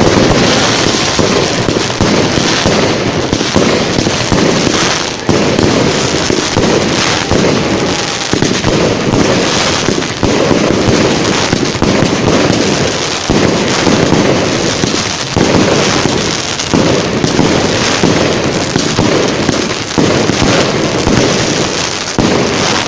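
Firework display: a dense, continuous barrage of bangs and crackling from salvos of aerial shells, with no let-up.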